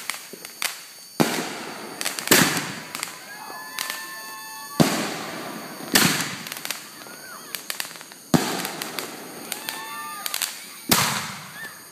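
Consumer aerial fireworks bursting overhead: six loud bangs, one to two and a half seconds apart, each trailing off in a crackle, with smaller pops between.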